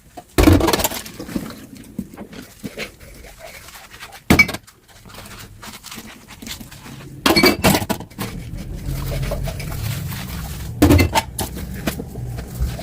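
Dishes knocking and clinking together while being washed: a few sharp clatters, about a second in, near four seconds, around seven to eight seconds and near eleven seconds.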